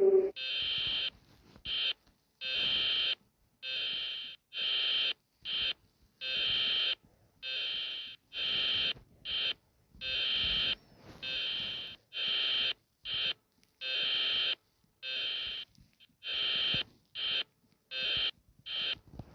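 Electronic alarm sounding a string of high-pitched, buzzy beeps, some long and some short, with short gaps between them.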